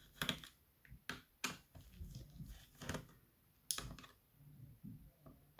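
Irregular light clicks and taps of a Dell Latitude E7240's plastic case parts being handled during disassembly, five or so in a few seconds.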